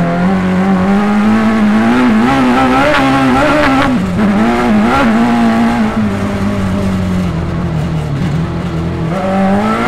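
Sierra Cars off-road buggy's Suzuki Hayabusa motorcycle engine running under throttle while driving, heard onboard. Its note climbs in the first second, swings up and down for a few seconds as the throttle is worked, holds steadier in the middle and rises again near the end.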